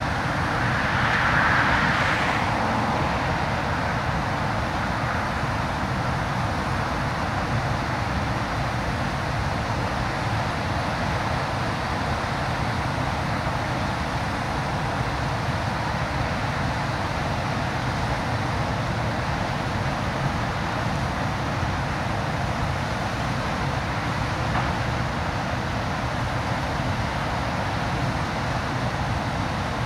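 Steady rushing of high, muddy river water pouring over a low spillway dam and churning at its foot, a little louder in the first couple of seconds.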